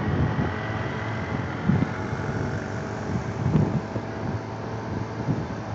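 Motorcycle riding in traffic, heard from the rider's seat: steady engine and road noise, with wind buffeting the microphone in low gusts every second or two.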